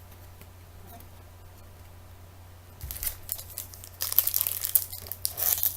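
A foil trading-card pack wrapper crinkling and tearing as it is opened, starting about halfway through in a run of sharp crackles. A steady low hum lies under the quieter first half.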